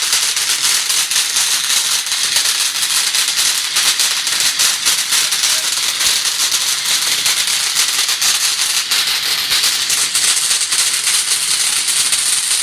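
Epic Fireworks Glitzy Blitz firework fountain burning, spraying sparks with a steady hiss full of dense fine crackles.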